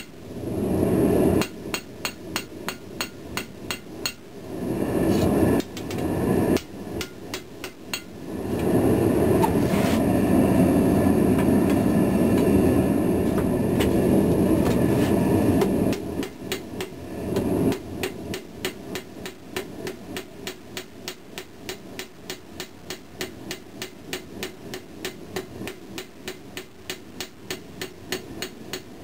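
Ball-peen hammer striking red-hot pattern-welded steel on an anvil in a steady run of about three blows a second, forging the bevels into the blade. A loud, even rushing noise swells up over the blows several times, longest through the middle.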